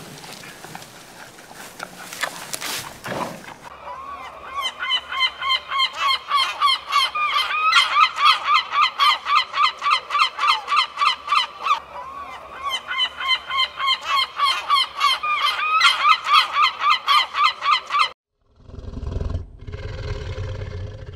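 A rapid series of honking bird calls, about four a second, in two long bouts with a short break about halfway. Near the end it cuts off abruptly and a low rumbling sound follows.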